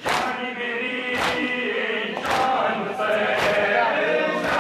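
A crowd of men chanting a mourning lament (noha) in unison, with the crowd's chest-beating (matam) landing together as sharp slaps about once a second.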